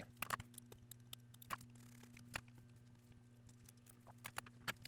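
Faint, scattered clicks and light scrapes of small hand tools working on a smartphone's internal parts, over a low steady hum.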